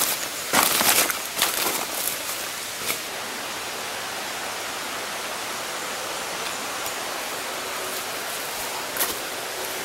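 Footsteps crunching through dry rainforest leaf litter, loudest in the first second and a half, with a couple of single crunches later, over a steady rushing hiss of flowing river water.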